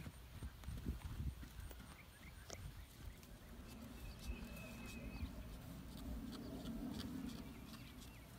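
Hooves of a Westphalian colt and a mare trotting on a dirt track: a quick run of dull thuds in the first couple of seconds. After that, a steady soft rustle.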